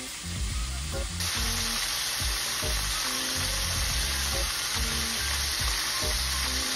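Battered walleye pieces deep-frying in hot oil, a steady full sizzle. It is quieter for the first second, then full from about a second in. The fish is mid-batch and the oil is hot enough, so it is still sizzling hard.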